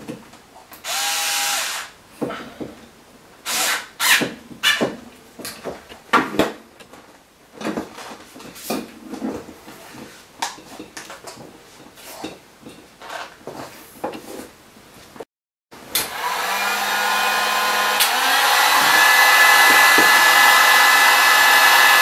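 A Bosch IXO cordless screwdriver runs for about a second, tightening a nut and bolt on a heavy battery cable terminal, followed by scattered clicks and rustles of handling the cable and heat shrink tubing. About two-thirds of the way through, a heat gun starts blowing, building over a couple of seconds into a steady, loud rush with a steady whine on top.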